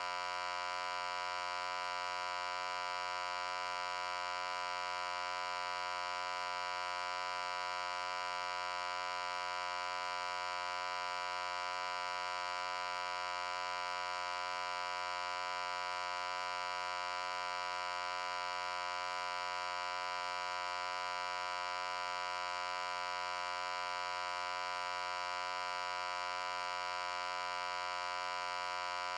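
Loud, steady electric-sounding hum: one buzzing tone rich in overtones that holds the same pitch and level without any change.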